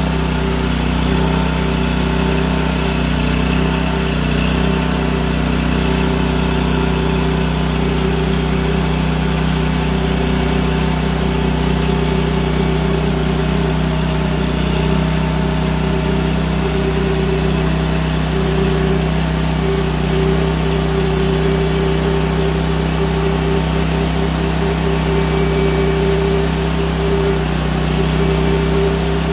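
Big Red XP portable band sawmill running steadily, its engine under load as the band blade cuts through an oak log. The sound is an even, unbroken hum with no rise or fall.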